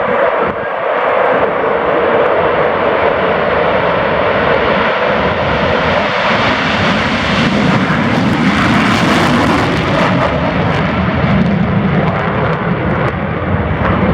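USAF Thunderbirds F-16 Fighting Falcon jets flying past, their engines a loud, steady roar. The hiss swells to its highest about eight to ten seconds in, then gives way to a deeper rumble.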